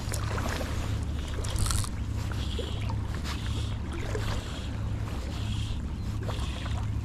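Fly line handled on a fly rod: line pulled off the fly reel in the first couple of seconds, then stripped in with short hand pulls, each a brief swish, repeating roughly every second. A steady low rumble runs underneath.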